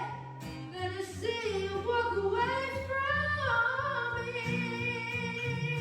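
A woman singing live, holding and gliding between long notes over steady low accompaniment.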